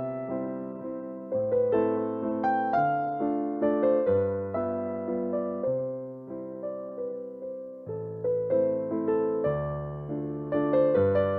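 Background music: a gentle electric piano melody over a repeating bass line.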